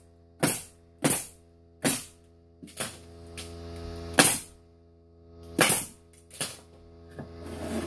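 Pneumatic stapler firing staples into 2x4 lumber: about six sharp shots at an uneven pace, each a crack with a short burst of exhaust air, with a few lighter knocks between, over a steady hum.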